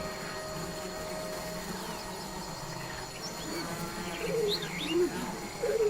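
Stomach growling: a run of short, squeaky gurgles that bend up and down in pitch, starting about halfway through over a steady low hum.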